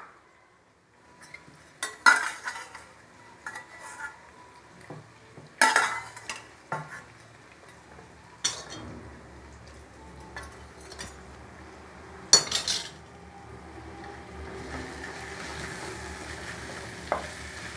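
A spatula stirring and scraping masala in a kadai, with irregular knocks against the pan. Under it the onion-tomato masala sizzles as it fries, growing louder over the last few seconds.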